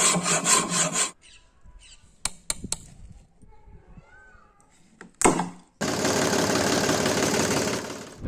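Hacksaw blade cutting a wooden block, about five quick strokes in the first second. Then a few light clicks, a sharp knock about five seconds in, and a steady loud noise over the last two and a half seconds.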